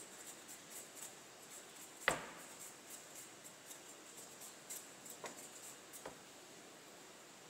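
Kitchen knife blade scraping the skin off a carrot in repeated short, faint strokes. A sharp knock about two seconds in, with two fainter knocks later.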